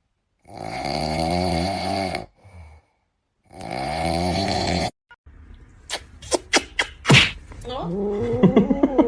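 Two long, wavering vocal cries, each about two seconds long, then a few sharp clicks and a fast pulsing cry near the end.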